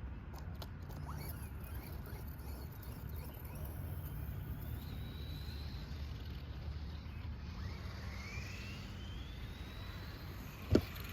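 Whine of an RC monster truck's electric motor rising in pitch twice as the truck speeds up, over a steady low rumble. A sharp knock comes near the end.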